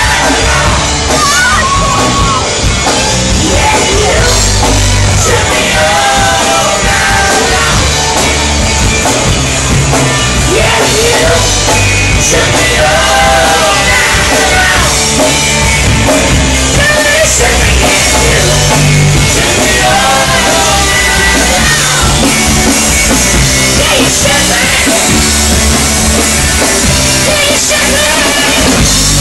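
Live rock band playing loud: a singer's vocals over electric guitars and a drum kit.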